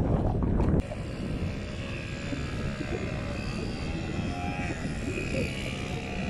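Quad bike (ATV) engine running steadily as the rider climbs a sandy trail, a continuous drone with faint pitched tones. In the first second, a louder rushing noise cuts off abruptly.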